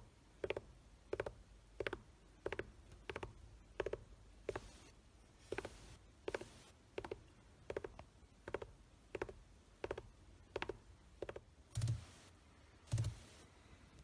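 Gerbil drumming its hind feet on the floor: short bursts of rapid taps, repeated about every two-thirds of a second, with two heavier thuds near the end.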